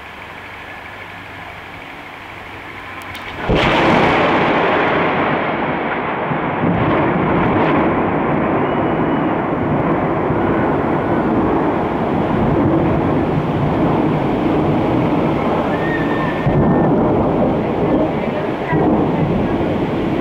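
A sudden, very loud thunderclap about three and a half seconds in, breaking a steady hiss and rolling straight into a long, heavy thunder rumble.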